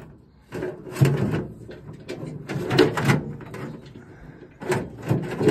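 Steel chain and metal parts clanking and rattling in irregular bursts, with a few louder knocks, as a hoist chain is handled on a combine's unloading auger.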